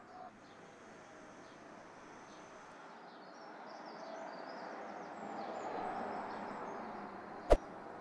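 Quiet outdoor ambience with faint, scattered bird chirps, swelling slightly in the middle. Near the end, a single sharp knock.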